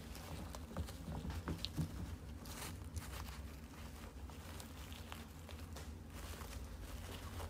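Soft scattered rustles, taps and clicks of a puppy mouthing and pawing at artificial flowers on a towel, over a low steady hum.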